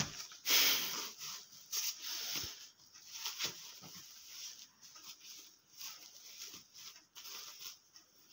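Rustling and crinkling of a disposable pants-style diaper being pulled up over a baby's legs and hips, in irregular bursts, loudest about a second in.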